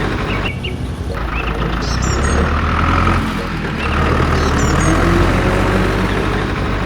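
A steady low engine-like rumble, with birds chirping over it.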